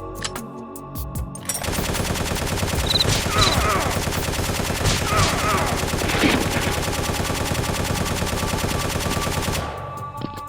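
Rapid, continuous automatic gunfire, starting about a second and a half in and cutting off near the end.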